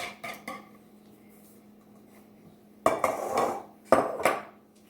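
Kitchen utensils and dishes clattering against a mixing bowl: a few light clicks at the start, then two loud clatters about a second apart near the end.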